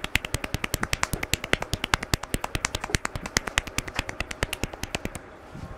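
Barber's hands tapping rapidly on a head in a percussive head massage, a fast even run of sharp clicks about ten a second that stops about five seconds in.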